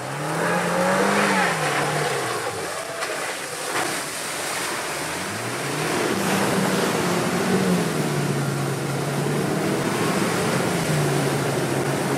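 Land Rover Defender engine pulling under load off-road: the revs rise, fall away, climb again and then hold steady, over a constant rushing noise.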